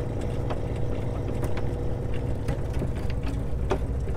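Anchor windlass hauling in anchor chain: the links clank irregularly as they come aboard and drop into the chain locker, over a steady low mechanical drone.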